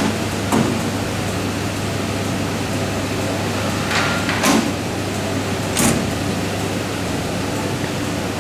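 Windowed access door of a book-trimming machine being worked by its handle: a few short clunks and knocks, one about half a second in, two around the middle and one a little later. They sit over a steady hiss and low hum.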